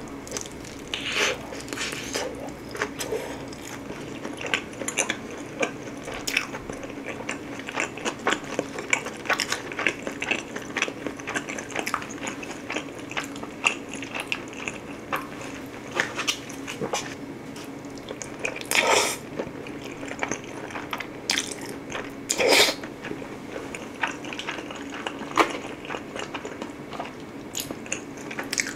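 Close-miked eating: biting into and chewing a thin-crust pizza slice spread with garlic dipping sauce, with irregular crunches and wet mouth clicks and two louder mouth noises about two-thirds of the way through, over a faint steady hum.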